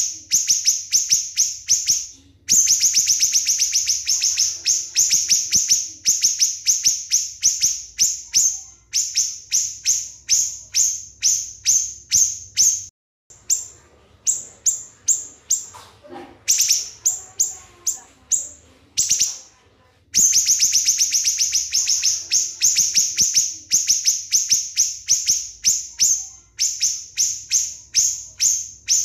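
Small songbird singing a fast series of sharp, high notes, about five a second, in long runs broken by brief pauses.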